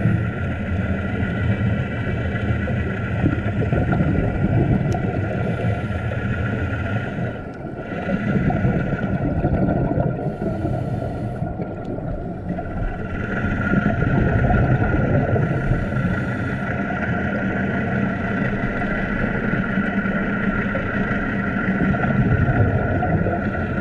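Steady underwater drone of boat engines and propellers, heard through an underwater camera.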